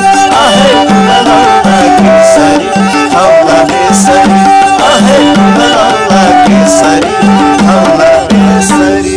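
Nepali sarangi bowed in a repeating, rhythmic melodic pattern, with a man singing a Nepali folk song over it.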